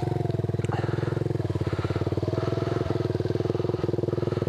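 Motorcycle engine idling steadily close by, a fast even pulse that doesn't change.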